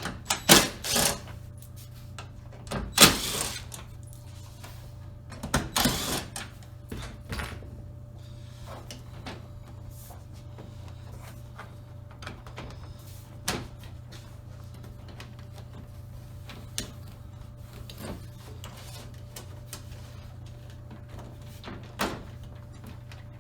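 Handling knocks and clatter from working on the back of a flat-screen TV as its screws are removed. A few loud knocks and rattles come in the first seven seconds, then only scattered single clicks, over a steady low hum.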